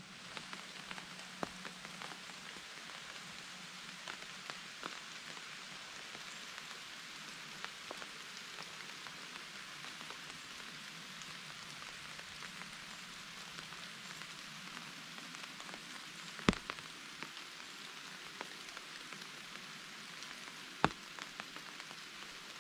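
Steady rain falling on the trees and pattering on an umbrella held overhead, with many small drop ticks and two louder taps, one about two-thirds of the way through and one near the end.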